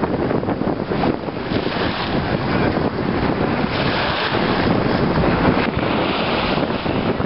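Wind buffeting the microphone, with small waves washing onto the shore.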